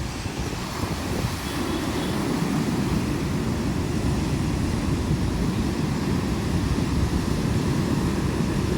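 Strong gusting wind buffeting the microphone with a low, steady rumble, over the noise of storm surf on the sea.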